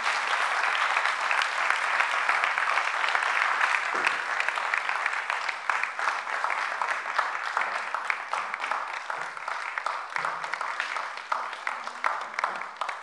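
Audience applauding, many people clapping at once; the clapping is fullest in the first seconds and slowly thins out toward the end.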